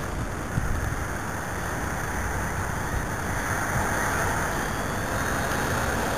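Strong gusty wind blowing across the microphone: a steady rushing noise with an uneven low rumble.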